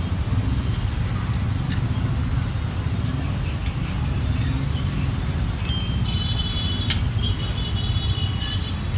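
Steady low rumble of road traffic, with a few sharp clicks over it.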